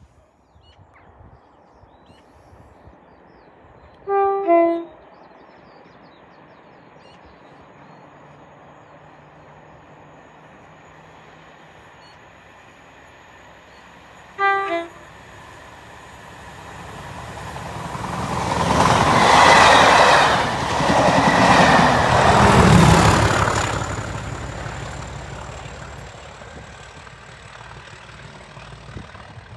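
A train sounds its two-tone horn, a short high-then-low blast about four seconds in and a second, shorter one about ten seconds later. The train then passes close by, loud for several seconds before fading away.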